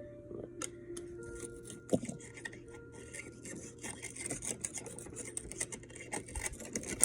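Scratchy rubbing and scraping with many small clicks: dry, sandy dirt being scrubbed and picked off a toy excavator. A sharper knock comes about two seconds in.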